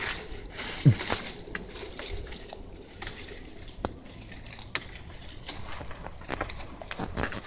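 Irregular rustling and scattered clicks, as of leafy garden plants being pushed through and a hand-held phone being handled. There is one short, low, falling thump about a second in.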